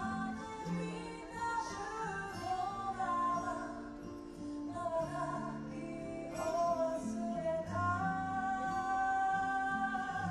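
A woman singing live, a slow melody over instrumental accompaniment, ending on a long held note over the last couple of seconds.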